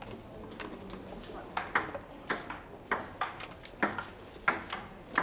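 A run of sharp clicks or knocks on a hard surface, roughly one every half second to second, starting about a second and a half in.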